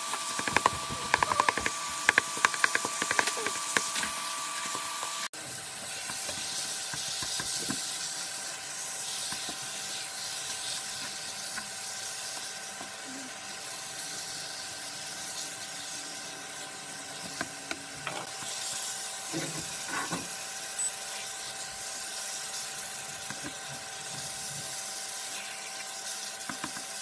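Ground meat sizzling in a nonstick frying pan, with a spatula scraping and tapping the pan in quick strokes over the first few seconds and a few more clicks later. A thin steady tone runs under the sizzle.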